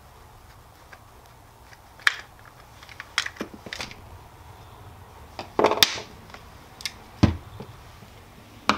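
Plastic clicks and clatter from a Milwaukee M12 rotary tool being taken apart by hand: the nose cone unscrewed and the red plastic housing halves pulled apart, with parts set down on the workbench. Scattered sharp clicks, the loudest cluster about six seconds in, and a low thump a little after.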